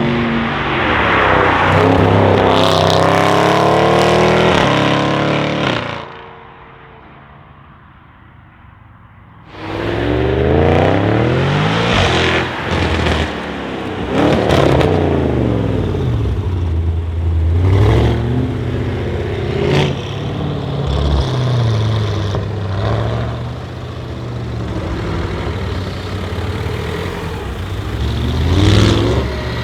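Audi RS6 C7's twin-turbo V8 accelerating hard through straight-piped, decatted Milltek exhaust. Its pitch climbs in repeated sweeps that break off at each upshift, with sharp exhaust crackles at the breaks. About six seconds in it falls away for some three seconds, then several more full-throttle pulls follow.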